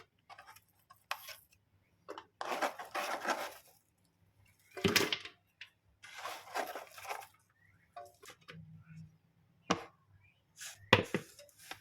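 Kitchen handling noises as garlic cloves are put into a blender jar: a few short rustling scrapes and some light knocks and clinks.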